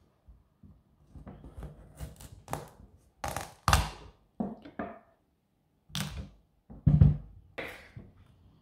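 Kitchen knife cutting a hard, thick-skinned potimarron (red kuri squash) on a wooden cutting board: an uneven string of knocks and thunks as the blade goes through the skin and meets the board, the loudest about four and seven seconds in.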